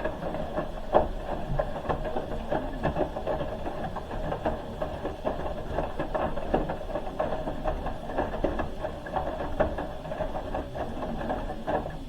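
Hoover H-wash 300 Plus washing machine tumbling its drum during the wash: a steady motor whine with irregular knocks from the load turning over. It stops abruptly at the end as the drum pauses.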